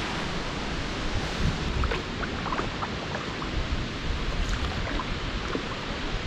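Small water splashes and drips from a canoe being paddled along a calm river, scattered over a steady hiss.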